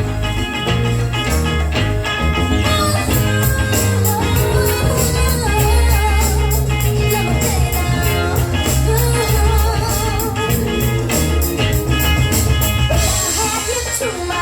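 Song with singing, guitar, heavy bass and drums playing through two Imenso X64 and X63 portable Bluetooth speakers paired in TWS stereo. The drum beat comes in about three seconds in, and the vocals follow about a second later.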